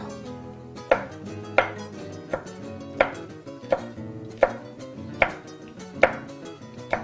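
Chef's knife slicing a fresh red chili pepper on a wooden cutting board: about nine sharp knocks of the blade on the board, evenly spaced a little under one a second.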